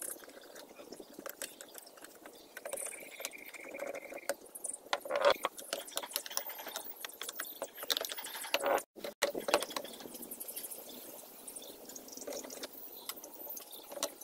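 Scattered small clicks, taps and rustles of a motorcycle's plastic headlight cowl and its wiring being handled and fitted by hand, cutting out briefly about nine seconds in.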